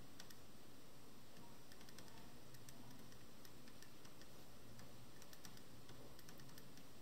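Pen writing on paper: faint, irregular ticks and scratches of the pen tip on the page, over a low steady hum.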